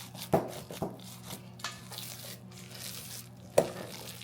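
Gloved hand working a ground-beef meatloaf mixture in a bowl: a few short, separate squishes and soft thumps, with plastic rubbing and crinkling, over a steady low hum.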